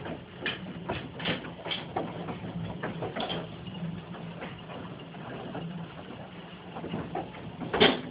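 Golf-ball-sized hailstones striking the house in irregular sharp knocks over a steady hiss of falling hail, with one loudest strike near the end.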